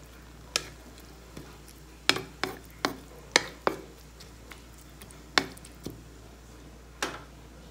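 Wooden spatula tapping and knocking against a pan as wet spinach leaves are stirred, about ten sharp irregular taps with a quick run of them around the middle.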